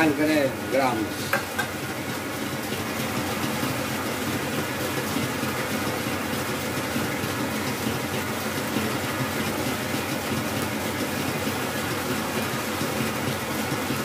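Stand mixer running steadily, its wire whisk beating meringue in a metal bowl.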